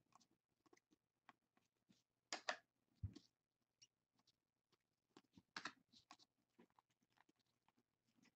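A stack of glossy Bowman Chrome baseball cards being handled and flipped through: faint scattered ticks and slides of card against card, with louder swipes about two and a half and five and a half seconds in and a soft low thump around three seconds in.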